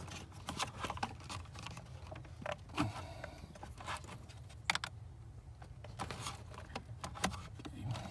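Scattered light clicks and small rattles of hands working under the dashboard, as a replacement blade fuse is pushed back into the fuse panel.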